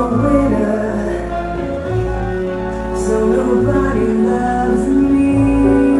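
Music playing loud: a slow song with long held chords and deep bass notes, with singing over it.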